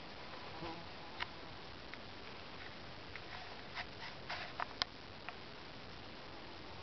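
Quiet ambience: a steady faint hiss with a scattered handful of short, sharp clicks, most of them about four to five seconds in.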